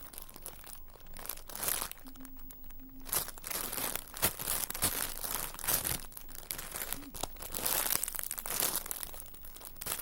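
Plastic crinkling and rustling in irregular bursts as squishy toys are handled.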